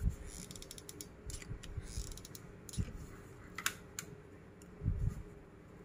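Faint, scattered clicks and creaks from squeezing a hot glue gun and handling plastic straws, with a couple of dull knocks on the work surface, one at the start and one about five seconds in.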